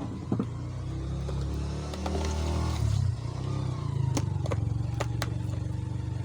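A steady low rumble of a motor vehicle engine running outside, its pitch shifting a little, with a few sharp clicks of a speed cube's layers being turned in the second half.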